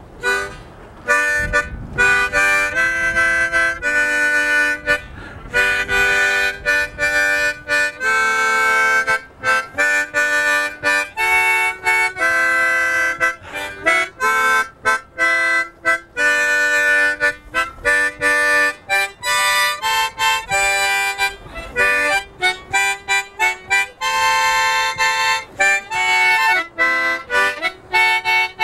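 Harmonica played as a tune: a run of short chords and notes with brief breaks between them, played to call fish.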